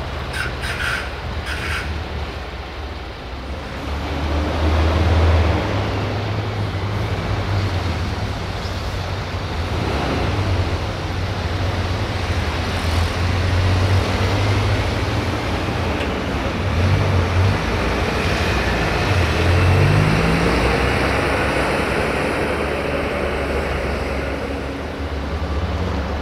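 Heavy diesel trucks' engines running as they pass and pull away: a steady low drone, with the revs rising and falling a few times later on and a slowly rising whine in the second half. A few short clicks sound in the first two seconds.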